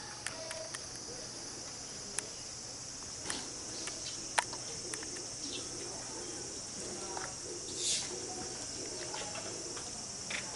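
Steady high-pitched drone of summer insects, with a few faint scattered clicks and knocks.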